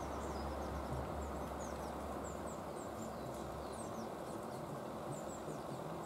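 Rapid, high-pitched chirps from small songbirds, short notes repeated throughout over a steady outdoor background hiss. A low rumble fades out a little over halfway through.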